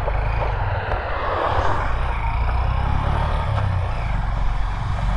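Honda Hornet 2.0 motorcycle on the move: steady wind rushing over the microphone, with the engine running underneath as a deep rumble.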